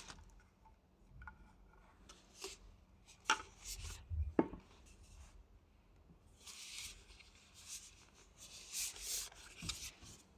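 Handling noises: soft rubbing and scraping with a few sharp clicks, and no motor running.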